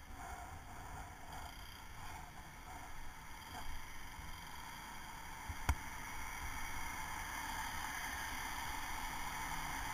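Wind and road noise on a helmet-mounted camera riding a bicycle in traffic: an uneven low rumble under a steady rush, growing louder toward the end, with a single sharp click about halfway through.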